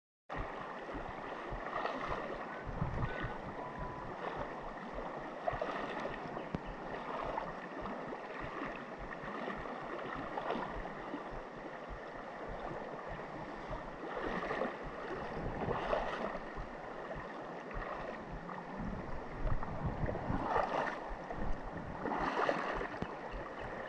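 Fast, high creek water rushing steadily, with wind buffeting the microphone in irregular low gusts.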